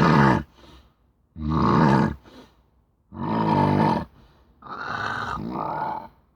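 Loud snoring: about four long, throaty snores roughly one and a half seconds apart, the last one the longest.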